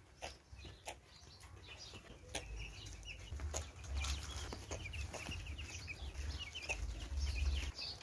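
A flock of young broiler chicks peeping in many short, high chirps, with scattered sharp clicks among them and a low rumble in places. This is the odd sound that farmers often take for chronic respiratory disease, which this farmer holds it is not, and which he finds most common in hot weather.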